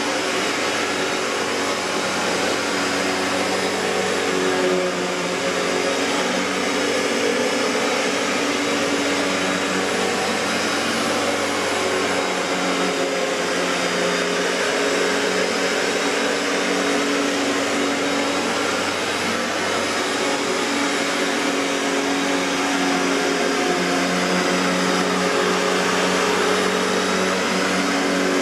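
A 1994 Riccar N2000 upright vacuum cleaner, with a Panasonic-built motor, running steadily. Its airflow rush carries a motor hum whose pitch wavers slightly.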